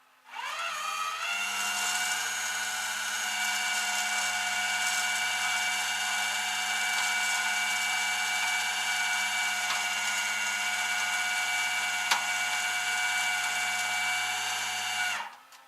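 A power tool's motor spins up with a rising whine, runs steadily at a high pitch, and then cuts off suddenly near the end.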